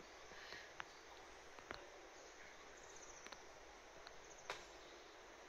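Near silence: faint background hiss with a few soft, sparse clicks and a brief faint high chirping about three seconds in.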